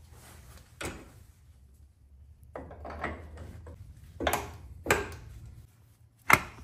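Metal clunks and knocks of a new CV axle being worked into place on a Mercedes GLB 250's front suspension and transmission: a few scattered knocks, then a sharp, louder knock near the end.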